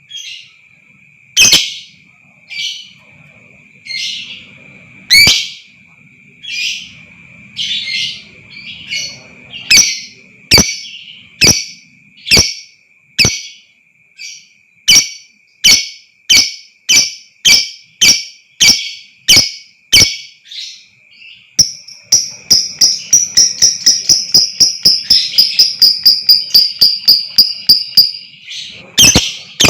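Lovebird giving sharp, shrill calls that repeat every second or two and gradually speed up, then break into a long rapid chattering trill of about six notes a second near the end: the long 'ngekek' song. A steady thin high tone runs underneath.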